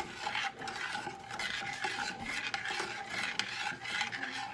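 A spoon stirring flour-and-water gravy in a stainless saucepan, scraping the bottom of the pan in repeated strokes about two a second. The gravy is still thin as it cooks on the burner.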